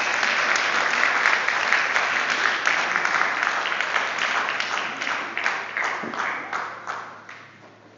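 Audience applauding, dense clapping that dies away over the last couple of seconds.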